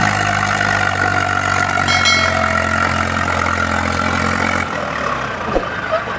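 Eicher tractor's diesel engine running steadily as it hauls a loaded sand trolley; its low engine note drops away about three-quarters of the way through. A brief high squeak about two seconds in.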